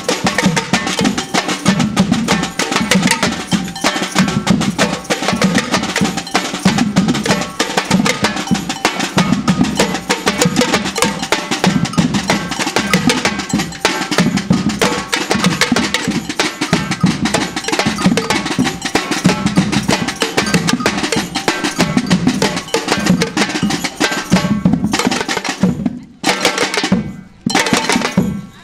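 Samba drumming band playing a steady groove: deep bass drums beat about once a second under busy higher drums played with sticks. Near the end the rhythm breaks up into short bursts of hits with sudden gaps between them.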